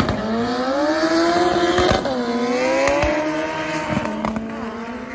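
Drag-racing car's engine accelerating hard down the strip. Its pitch rises, drops at a gear change about two seconds in, climbs again, then holds and fades as the car pulls away into the distance.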